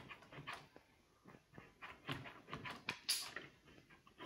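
LEGO Technic pneumatic hand pump being worked in short strokes, a run of faint puffs and plastic clicks, with a brief hiss of air about three seconds in.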